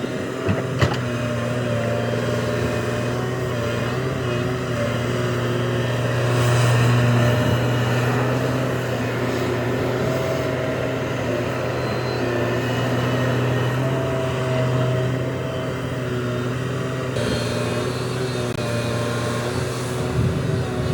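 Heavy diesel engine of earthmoving machinery running steadily, with a single sharp knock about a second in and a slight rise in level a few seconds later.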